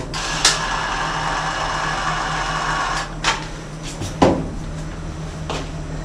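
Ryobi cordless caulking gun motor running steadily with a whine for about three seconds, driving two-part anchoring adhesive through a static mixing nozzle, then stopping. A few short clicks and a knock follow.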